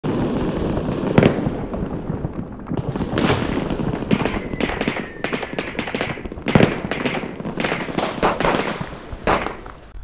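Fireworks going off: a dense, continuous crackle and rumble broken by many sharp bangs, the loudest about a second in and again near seven seconds in.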